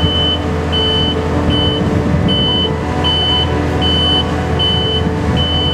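Watermaster Classic V amphibious dredger's engine running steadily, with its high warning beeper sounding about every three-quarters of a second.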